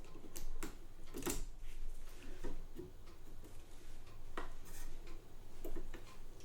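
Small metal clicks and taps of a screw and screwdriver being worked against the metal plate of a Facit ESA-0 calculator, a few scattered strikes with pauses between. The screw is stubborn and will not seat.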